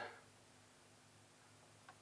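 Near silence: room tone with a faint steady low hum and one faint click near the end.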